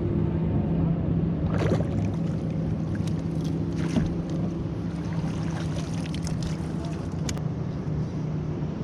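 A boat motor running steadily, a constant low hum over water and wind noise, with a few sharp knocks about two, four and seven seconds in.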